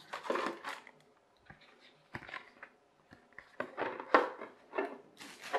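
Handling noise from unpacking a small birdhouse kit: a paper sheet and plastic film rustling, with light knocks of thin board panels being set against each other. Irregular, loudest about four seconds in.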